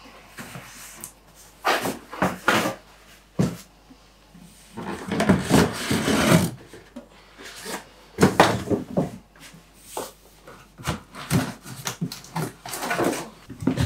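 Cardboard boxes being slid across and lifted off the top of wooden kitchen cabinets: irregular scraping, rubbing and knocks, with the longest scrape about five to six and a half seconds in.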